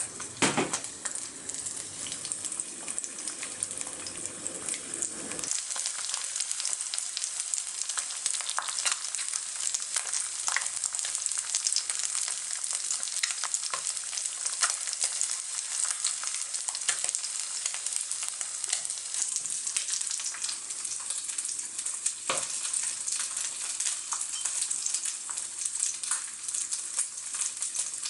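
Food sizzling and crackling in a hot frying pan, with occasional sharp clicks of a utensil against the pan. A low background rumble stops about five seconds in.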